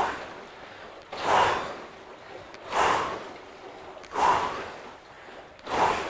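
Water rowing machine churning the water in its tank, one whooshing surge with each pull stroke, about every second and a half.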